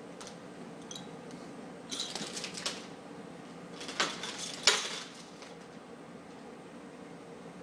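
Clinks and clatter of a baby's hard toys, in two short bursts about two seconds apart, the second ending in a sharp clack.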